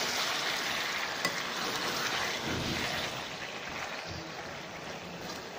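Raw chicken pieces sizzling in hot oil in a frying pan as they are stirred and turned with a slotted spatula. The hiss of the frying slowly dies down.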